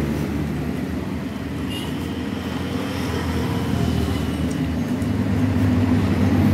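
Road traffic noise: the steady hum of passing vehicle engines, growing louder toward the end.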